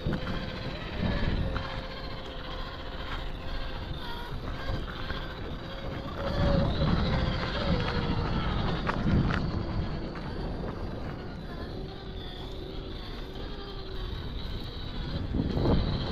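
Electric motor and gear drive of a 1/7-scale MK-07 RC Jeep crawler whining steadily, the pitch dropping lower about halfway through, over a low rumbling noise that swells in places.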